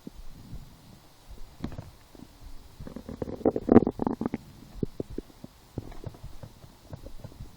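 A woman's stomach growling and gurgling in irregular bursts, with a short gurgle near two seconds in and the loudest run of gurgles around four seconds in. The rumbling comes with hunger after little food.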